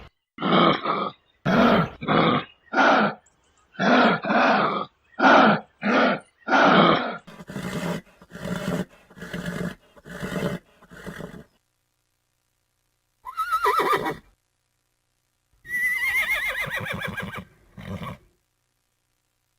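Animal calls: a run of short, loud calls in quick succession, then quieter repeated calls. After a pause come two longer calls whose pitch falls with a quick waver, the second the longest, followed by one short call.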